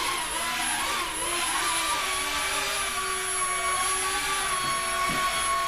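Millennium Falcon toy quadcopter's small electric motors and propellers whirring in flight, a steady whine whose pitch wavers a little as the throttle changes.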